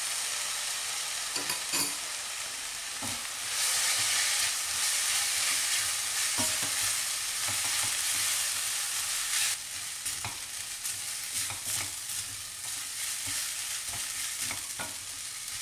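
Kimchi fried rice sizzling in a stainless steel wok, with a spatula scraping and knocking against the pan as it is stirred. The sizzle grows louder about three and a half seconds in and eases off again near ten seconds.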